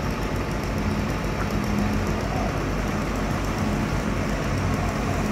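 An engine running steadily at idle, a low even hum over a rushing background.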